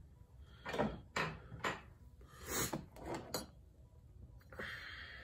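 Steel trailer-jack parts and mounting brackets being handled: a handful of short knocks and clatters of metal against metal, then a brief scraping rub near the end.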